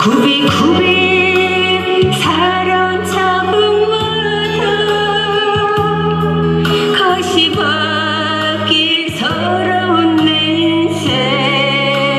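A woman singing a Korean trot song live into a microphone over an instrumental accompaniment, holding long notes with vibrato.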